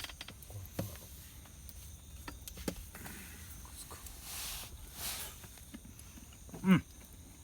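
A person eating and chewing: scattered small mouth clicks, a breathy rush of air about four to five seconds in, and a short falling 'mm' from the voice near the end, the loudest sound.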